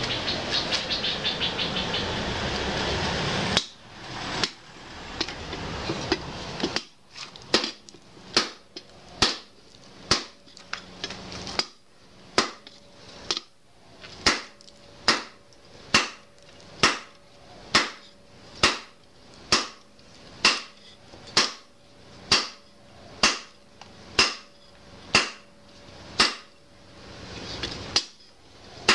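Hand hammer forging a red-hot bearing-steel parang blade on a round steel anvil block: steady blows about two a second, each with a ringing note. A loud rushing noise stops with a single blow about three and a half seconds in, and the steady hammering starts a few seconds later.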